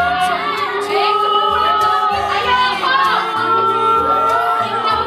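A song with sung vocals over a bass line that moves in even steps.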